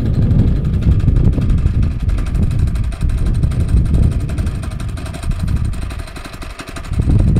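Honda GX160 single-cylinder four-stroke engine on a walk-behind power trowel running steadily at idle. Its level dips around six seconds in and picks up again near the end.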